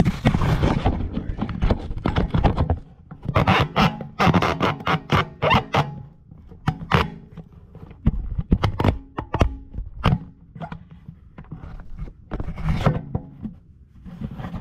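Ratchet wrench clicking in quick bursts as the driveshaft bolts are tightened, with knocks of the tool against metal between them.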